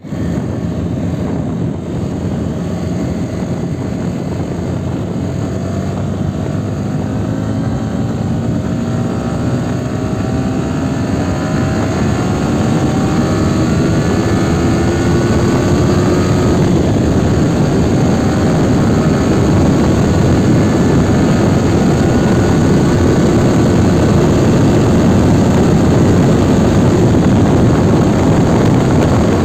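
Yamaha R15 V3's 155 cc single-cylinder engine running under acceleration at speed, its pitch climbing slowly and the whole sound growing louder as the bike speeds up, mixed with wind rush over the microphone.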